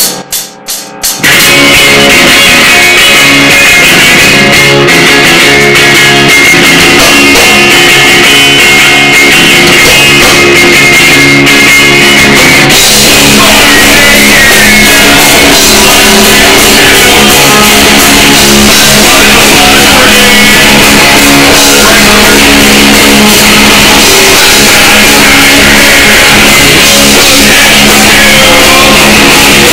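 Live rock band playing at full volume: electric guitar and drum kit. The band crashes in about a second in after a brief near-silent gap, and the sound grows denser about halfway through.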